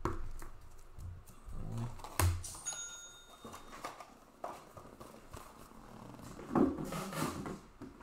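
Clicks, knocks and rustles of trading cards and hard plastic card holders being handled on a table, with a brief high ringing ding about three seconds in.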